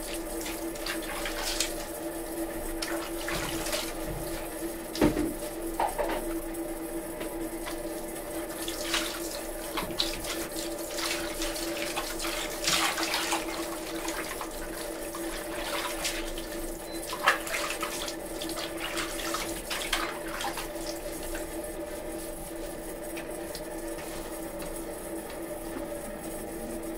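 Water running from a shower hose into a plastic basin, with irregular splashing and sloshing as hands scrub a wet dog in the water. A steady hum sounds throughout.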